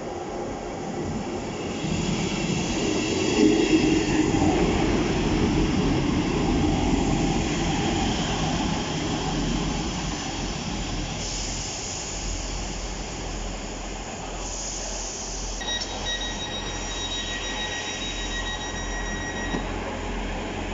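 A train running at the station platform: its rumble is loudest a few seconds in, then eases to a steady hum. Near the end a steady high-pitched tone sounds for about four seconds.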